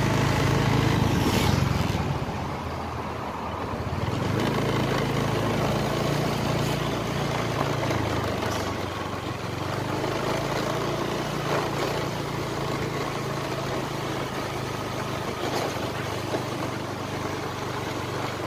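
Small motorbike engine running steadily while riding, with wind and road noise; the engine level rises and falls a little with the throttle.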